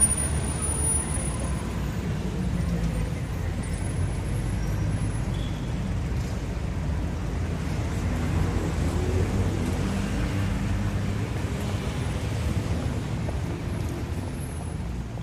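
Steady road traffic noise from a busy multi-lane road: an even, low rumble of many cars with no single vehicle standing out.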